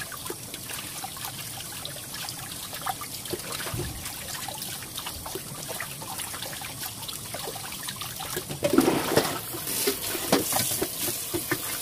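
Tap water running and splashing into a pot of water in a kitchen sink as raw chicken wings are rinsed one by one by hand. The splashing grows louder about three-quarters of the way through.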